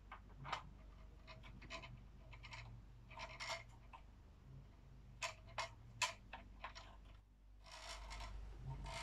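Small plastic clicks, taps and scrapes of a ring light's phone holder and mount being handled and fitted on its tripod stand, with a few sharper clicks about five to six seconds in and a short rustle near the end.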